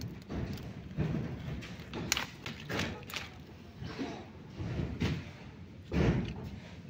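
Pak choy leaves rustling and a series of dull, irregular thumps as the plants are grabbed and pulled up out of the soil, the loudest thump about six seconds in.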